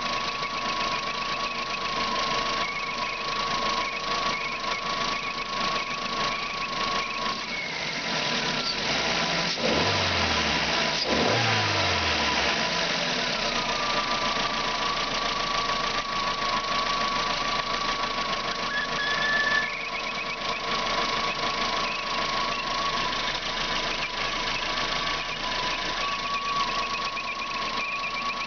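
Car engine idling with a steady high-pitched whistle, the sound the title puts down to the water pump, though the owner says the pump checked out with the belts off. About nine seconds in the engine is revved twice and the whistle drops out, coming back at idle.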